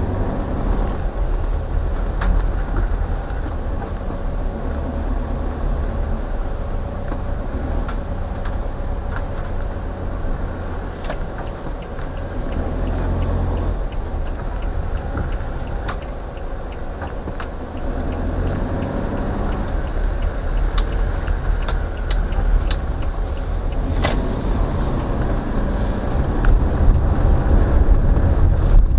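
Car interior noise while driving in slow traffic: a steady low engine and road rumble with scattered sharp clicks. It grows louder in the last third as the car moves off.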